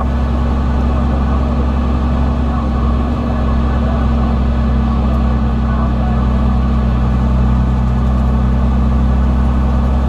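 Semi-truck's diesel engine running at a steady speed, heard from inside the cab as a constant low drone over road noise.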